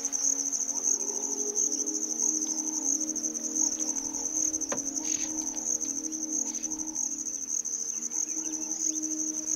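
Insect chorus: a steady, rapidly pulsing high trill, with a low steady hum underneath and a single click about halfway through.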